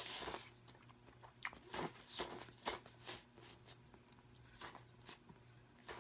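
Close-up eating sounds of instant noodles: a loud slurp right at the start, then a quick run of shorter slurps and wet chewing, easing off into softer mouth clicks and smacks in the last couple of seconds.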